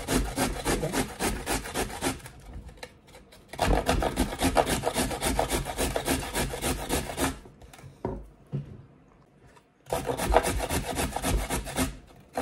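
Garlic being grated on a hand grater: quick, even rasping strokes, about five a second, in three runs with a pause about two seconds in and a longer one about seven seconds in.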